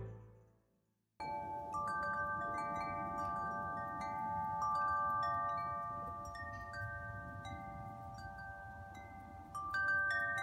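Large metal tubular wind chimes ringing, the tubes struck irregularly and each note ringing on long after the strike. They start about a second in, after a short silence, and a fresh cluster of strikes comes near the end.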